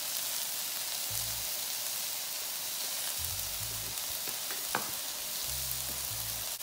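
Mushrooms and leeks sizzling steadily in a frying pan, with one light click about five seconds in.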